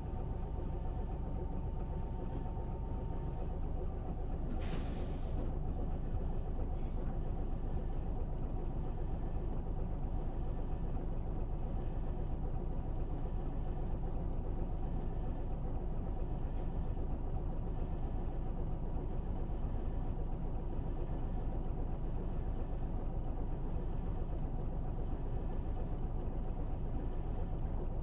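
A city bus's engine running, heard from inside the bus as a steady low rumble. About five seconds in there is a short hiss of released air, and a fainter one about two seconds later.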